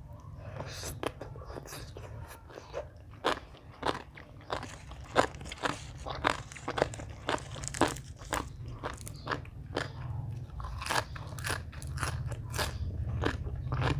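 A person chewing and crunching food close to the microphone, with many crisp bites coming irregularly, about two or three a second.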